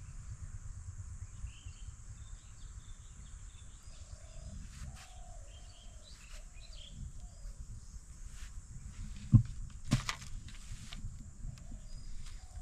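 Riverbank ambience: a steady low rumble and a steady high hum, with birds calling faintly. Two sharp knocks about nine and ten seconds in stand out above the rest.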